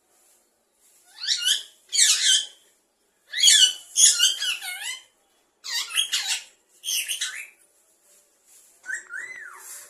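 Parrot calling in about six short bursts of high, warbling chirps and squeaks separated by brief pauses, ending with a single rising-and-falling whistle.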